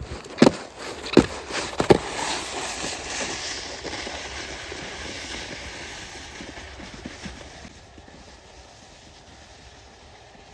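Snowboard scraping across thin icy snow over grass: three sharp knocks in the first two seconds as it sets off, then a long scraping hiss that fades as the board slides away.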